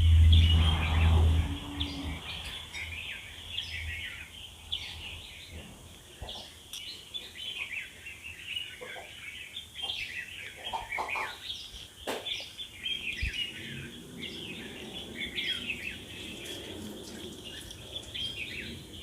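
Many small birds chirping and calling continuously, with short overlapping chirps. A loud low rumble sounds in the first second and a half, and a single sharp click comes about twelve seconds in.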